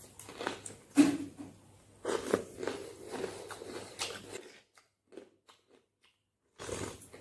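Close-miked biting and crunching of a piece of dry clay, with a loud crunch about a second in, followed by chewing. The chewing stops at about four and a half seconds, there is about two seconds of near silence, and the mouth sounds start again near the end.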